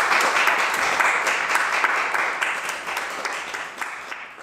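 Audience applauding, dense clapping that gradually fades out over the last couple of seconds.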